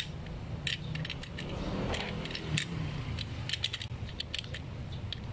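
Irregular metal clicks and clinks of a socket wrench turning the centre nut on a grass cutter's trimmer head, over a steady low hum.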